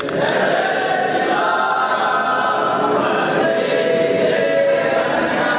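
A group of voices singing a devotional aarti hymn together, steady and unbroken, while the arti lamp is waved.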